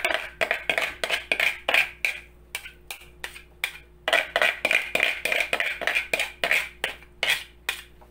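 Quick repeated scraping and clinking of a kitchen utensil against a bowl or grater, about three to four strokes a second, pausing briefly about halfway through.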